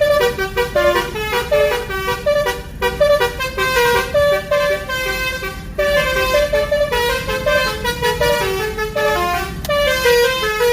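Telolet multi-tone bus horn playing a fast melody, its notes changing several times a second with hardly a pause.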